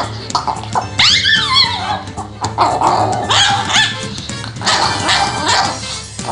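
A towel-wrapped chihuahua snarling and barking in protest, with background music playing throughout.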